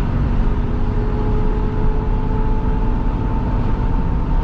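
Cummins turbo-diesel pickup engine pulling hard under a heavy trailer load just after an upshift, with a faint tone rising slowly as the truck gains speed.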